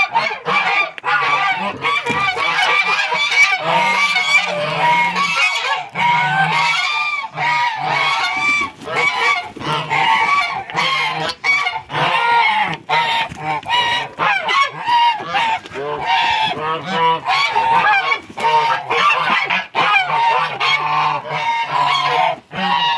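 A flock of domestic geese honking loudly and without pause, many calls overlapping.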